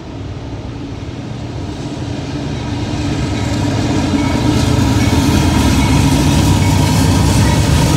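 Diesel-electric freight locomotives approaching a grade crossing, their engine rumble growing steadily louder as they near.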